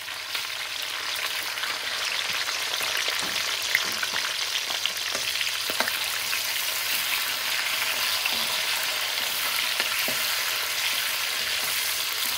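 Chopped peppers and onions sizzling in hot oil in a cast iron karahi over a high gas flame: a steady, dense sizzle, as the vegetables are stirred with a metal ladle that clinks against the pan a few times.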